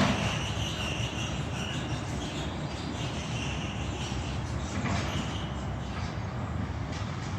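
Demolition machinery working on a flume ride's lift hill: a steady engine rumble with a high-pitched metallic squeal that comes and goes, as the structure is strained and pulled.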